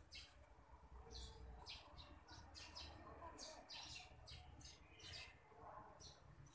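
Small birds chirping faintly: many short, high chirps, several a second.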